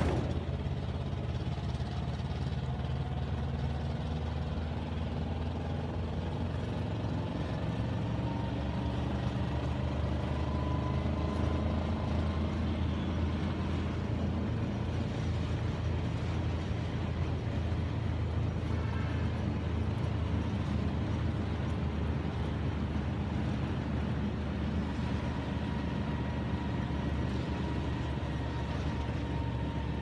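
Road traffic from trucks and cars in a queue of congested traffic: a steady low engine rumble.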